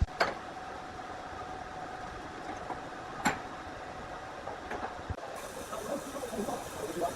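Sawmill machinery running steadily, with sharp knocks or clanks just after the start and about three seconds in. After about five seconds it turns to a busier, irregular clatter.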